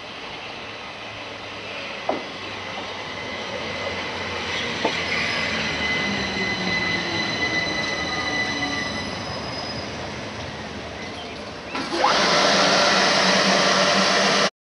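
Class 375/377 Electrostar electric multiple unit running through the platform: a steady rumble that grows louder, with a high steady whine in the middle and two sharp clicks. Near the end the noise jumps suddenly much louder as the carriages pass close by.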